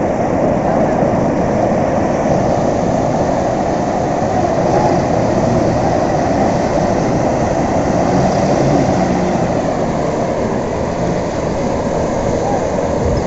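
Steady roar of sea surf breaking on the beach.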